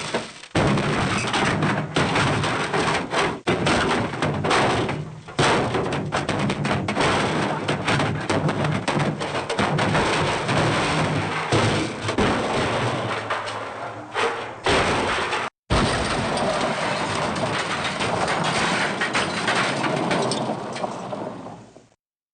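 A dense, loud run of crashes and thuds, with a sudden cut about fifteen seconds in, then resuming and fading away just before the end.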